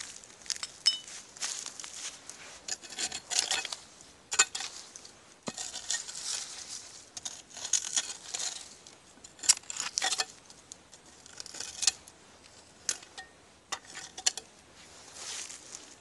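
Digging through old dump debris: a tool scraping and raking through dirt, with irregular sharp clinks of broken glass and bits of metal knocking together.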